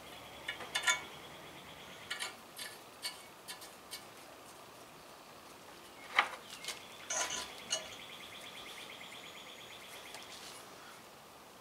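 Light metallic clicks and clinks of a thread tap and small wrench being worked back and forth in a stud hole in a cast-iron exhaust manifold, the tap binding in the hole. A sharper click comes about six seconds in, and a faint high trilling tone sounds at the start and again from about seven to ten and a half seconds.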